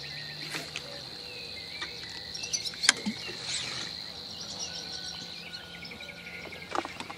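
A steady, high-pitched insect-like trill with scattered short bird chirps over it. A sharp click comes about three seconds in, and another short sharp sound near the end.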